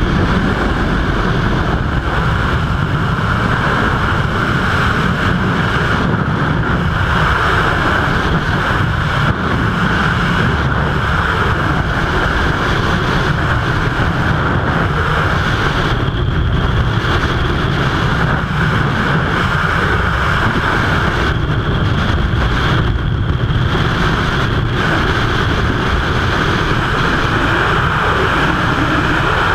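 Freefall wind rushing over a skydiver's camera microphone: a loud, steady roar that does not let up.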